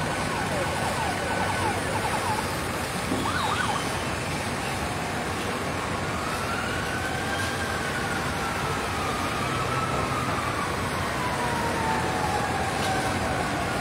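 Emergency vehicle siren wailing over a steady background din: a few quick sweeps in the first few seconds, then a slow wail that rises and falls from about halfway through.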